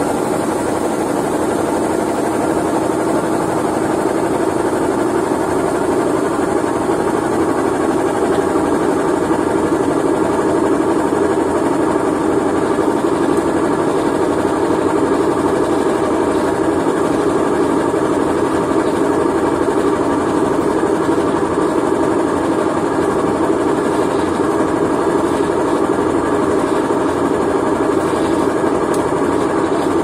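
Consul Cargo 8 kg top-loading washing machine in its spin cycle, the basket loaded with blankets spinning fast. It makes a loud, steady motor-and-drum hum.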